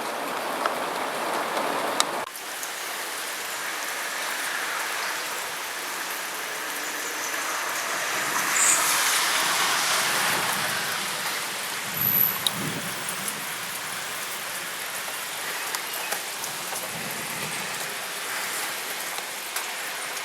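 Heavy rain falling steadily, swelling louder for a few seconds near the middle, with a couple of short low rumbles in the second half.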